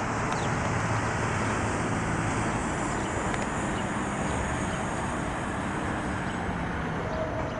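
Steady outdoor background noise, an even rushing sound with no distinct events, and a short steady tone near the end.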